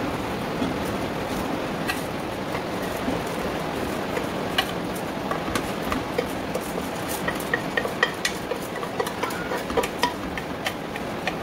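Rice being tipped from a steel saucepan into a pot of red peas in coconut milk and stirred in with a wooden spoon, for Jamaican rice and peas. Over a steady hiss, pot and spoon give scattered clinks and ticks that come more often from about four seconds in.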